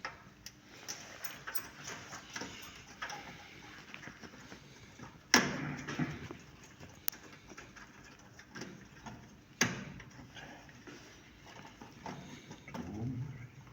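Hand work on electronic hardware: scattered clicks and small knocks as parts and connectors are handled and fitted. Two sharper knocks come about five and nine and a half seconds in.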